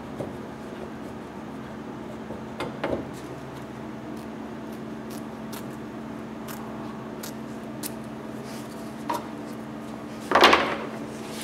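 Quiet handling sounds of fabric being ironed, trimmed and smoothed over an aileron under a steady low hum: a couple of light clicks about three seconds in, and a brief louder rub of the fabric under the hands near the end.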